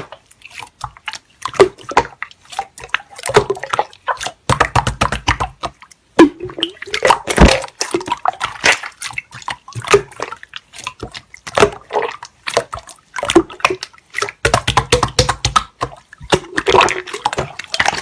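Slime being squeezed and poked by hand: a quick, irregular run of wet clicks, pops and squelches.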